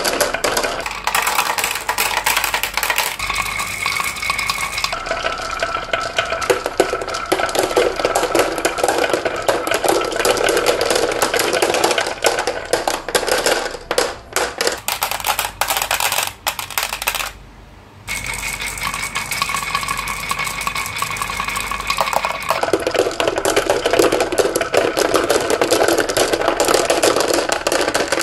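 Many glass marbles rolling and clacking down grooved wooden wave-track slopes, a continuous busy rattle of marble on wood and marble on marble, with marbles dropping into a plastic toy dump truck bed. The rattle briefly drops away about 17 seconds in, then resumes.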